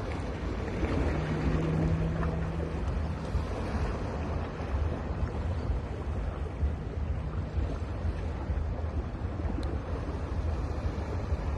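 Sea surf on a beach: a steady rush of breaking and washing waves, with a low wind rumble on the microphone.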